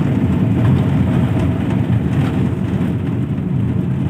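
Maruti Suzuki Super Carry mini-truck running on CNG, heard from inside the cab: a steady engine drone mixed with dense road rumble as it pulls a 1600 kg load uphill in third gear over a rough, broken road.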